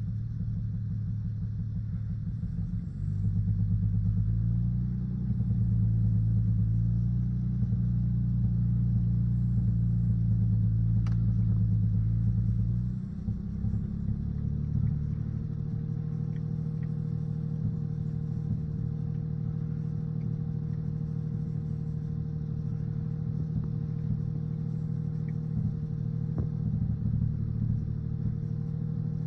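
Lexus GS300's inline-six engine running, held at raised revs for about ten seconds and then dropping back to idle for the rest. It has a misfire that the owner believes is in one cylinder.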